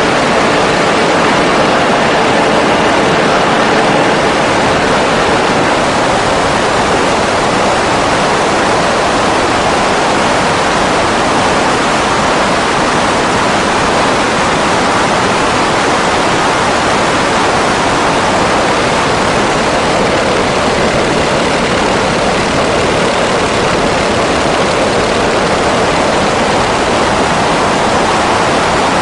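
Grumman Ag Cat seaplane's engine and propeller wash, a loud, steady rushing noise blasting over the microphone, with faint engine tones showing only in the first few seconds.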